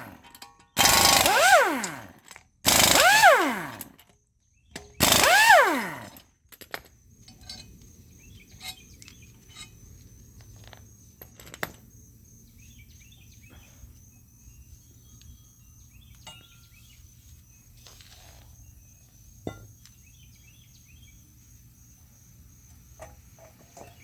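Power impact wrench hammering in three short bursts, each ending in a falling whine as the motor winds down. After that come scattered light clinks of metal parts being handled.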